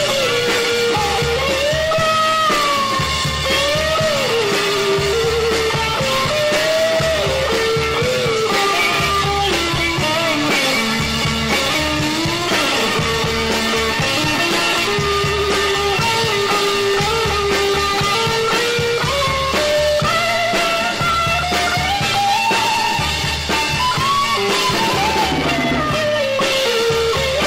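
A psychedelic rock band plays an instrumental break. A lead guitar plays a bending, gliding melody over a steady bass line and drums.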